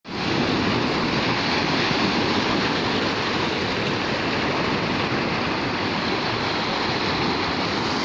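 Sea waves washing in over a sloping concrete shore and rocks: a steady rush of surf.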